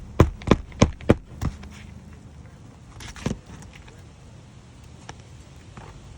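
Hammer blows on an asphalt-shingle roof during a shingle replacement: a quick run of sharp strikes, about three a second, that stops about a second and a half in, then one more knock about three seconds in.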